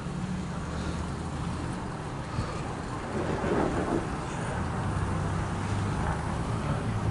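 Low steady engine hum with road traffic noise, swelling briefly a few seconds in.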